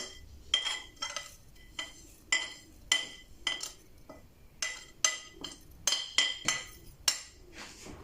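A metal spoon tapping against a glass bottle, about two clinks a second, each with a short ring, as dried pennyroyal is knocked off the spoon into the bottle.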